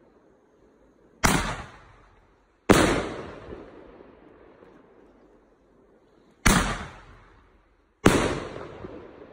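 Shells from a Jorge 30 mm, 8-shot fireworks cake going off as four loud bangs. The bangs come in two pairs, each a second and a half apart, with about four seconds between the pairs. Each bang echoes away over about a second.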